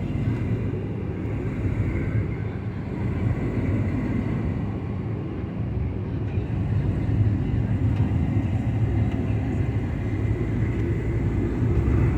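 Steady road noise of a car driving on a highway: a continuous low rumble of tyres and engine.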